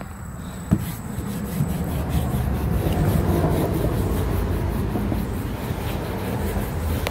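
A sanding block rubbed back and forth over wood-glue-soaked fabric stretched on a curved wooden shield, pressing out wrinkles and air bubbles. A sharp knock comes just under a second in, then steady rubbing.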